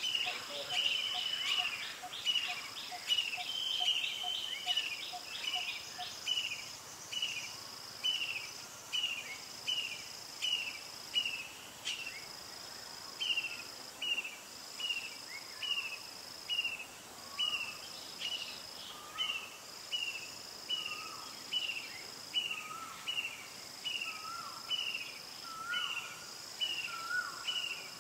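Forest ambience: an insect buzzing high in spells of about a second with short gaps, over a steady series of short, falling chirps repeated nearly twice a second. From about halfway through, a second, lower chirp joins, keeping time with the first.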